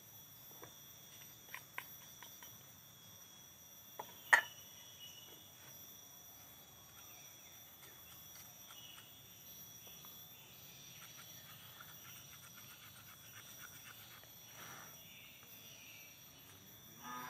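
Small metal paint tin being handled and opened. A few light clicks come first, then one sharp metallic pop about four seconds in as the lid comes free, followed by faint handling and scraping. A steady high insect drone runs underneath.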